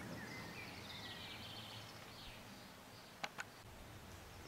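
Faint outdoor ambience with small birds chirping, and two short light clicks in quick succession about three seconds in.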